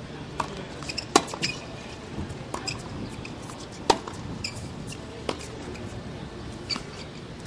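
Tennis ball struck by rackets and bouncing on the court in a rally, a series of sharp pops with the loudest hits about a second in and about four seconds in.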